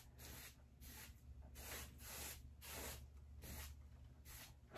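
Faint, rhythmic swishes of a paintbrush stroking paint onto wood, about two strokes a second.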